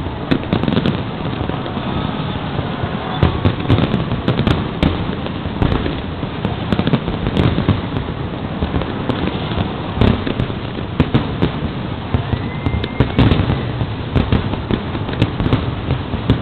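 Aerial fireworks display: a dense, continuous barrage of shell bursts and bangs going off in quick, irregular succession.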